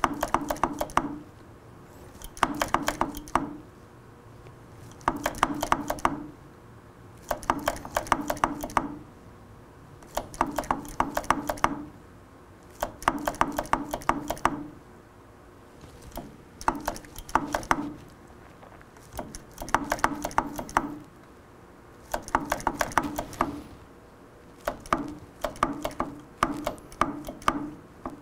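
Motorcycle front brake being bled by pumping: about every two and a half seconds, a one-second burst of rapid clicking and spluttering as brake fluid and air are forced through the caliper's bleed nipple into a clear hose.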